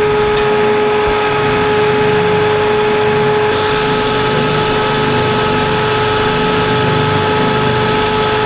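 Jet JBOS-5 oscillating spindle sander running with a shop vacuum pulling on its dust port, a board edge held against the 2-inch sanding sleeve. A steady motor whine over a broad hiss, with a slow, regular pulsing underneath.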